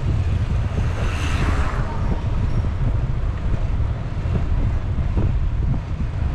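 Wind rumbling on a GoPro Hero 9's microphone while riding a bicycle: a steady low rumble, with a brief hissing swell about a second in.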